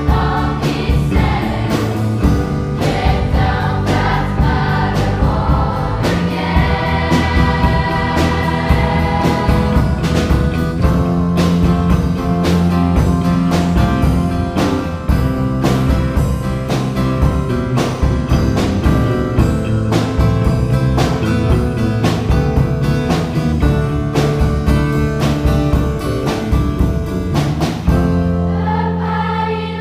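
A choir singing with a rock band: drum kit keeping a steady beat under electric bass and guitar. Near the end the drums stop and the choir carries on over a held chord.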